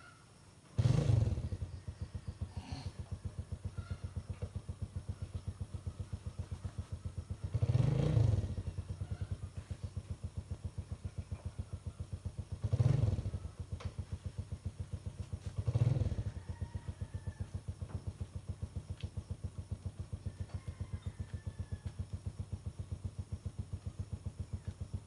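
A small engine starts suddenly about a second in and idles with a steady throb of about four to five beats a second. It is revved up briefly three times, then cuts off near the end.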